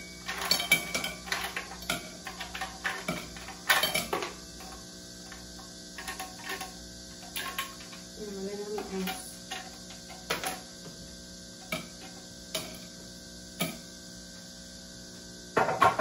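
Ice cubes clinking and knocking as they go into a tumbler: a quick flurry of clinks for the first few seconds, then scattered single clicks, over a steady low hum.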